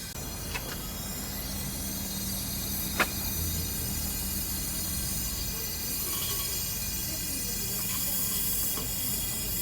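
Steady machinery hum with a constant hiss, broken by one sharp click about three seconds in.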